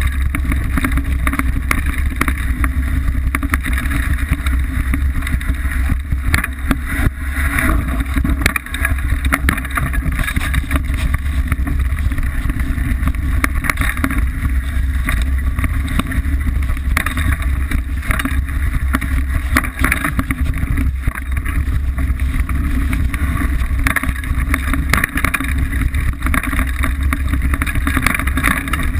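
Liteville 301 full-suspension mountain bike riding down a dirt singletrack, heard from a camera mounted on the frame: a steady low rumble of tyres and wind buffeting the microphone, with frequent rattles and knocks from the bike over the rough trail.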